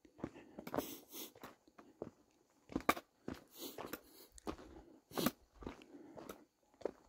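Hiking boots crunching on the dirt and gravel of a trail, uneven steps roughly two a second, the loudest about three and five seconds in.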